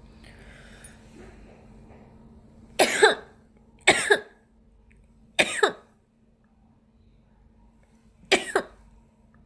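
A person sneezing in quick succession: three sharp sneezes about a second apart, then a fourth a few seconds later.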